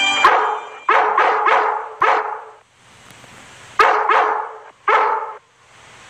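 Cartoon Dalmatian barking a long-distance alert call: a quick run of about five loud barks, a pause, then three more. A held musical chord cuts off just as the barking starts.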